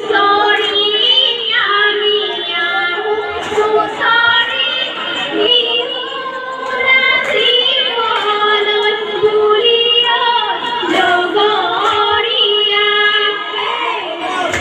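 Female voices singing a song together, with a steady held note underneath.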